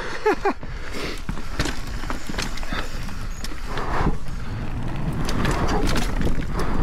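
Propain Spindrift enduro mountain bike riding fast down a rough forest trail: a steady rush of tyres and wind on the camera, with frequent sharp clicks and rattles as the bike goes over roots and bumps.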